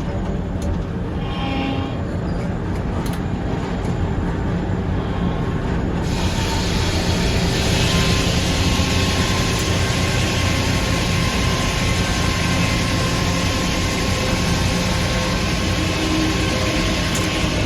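Sawmill headsaw cutting through a red oak log, heard from inside the operator's cab. The mill runs with a low rumble, then about six seconds in a loud, even rush of cutting noise begins, with a steady whine from about eight seconds. The saw's teeth are nearly due for filing.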